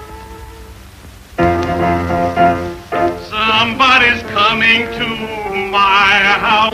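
A song sung in a trained, operatic voice with heavy vibrato over musical accompaniment. The singing comes in loudly about a second and a half in after a quieter stretch.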